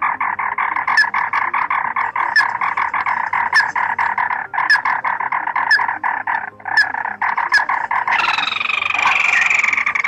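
Ruddy-breasted crake calling: a fast, rattling trill repeated in long runs with brief breaks, a sharp high note cutting in about once a second. Near the end it changes to a higher, busier call.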